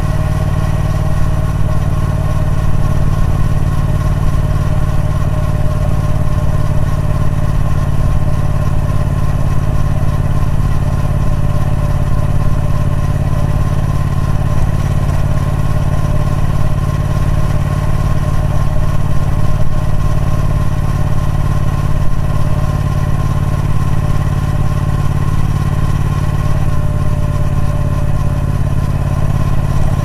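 Triumph Speed Twin 1200's 1200 cc parallel-twin engine running through its stock exhaust at a steady engine speed, its pitch holding without rising or falling.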